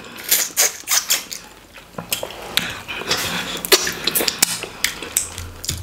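Eating by hand: a run of irregular wet mouth smacks and clicks from chewing and finger-licking, with a short, noisier smack or slurp about three seconds in.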